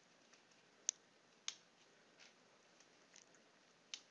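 Near silence with three short, sharp clicks of a computer mouse: one about a second in, another half a second later, and one near the end.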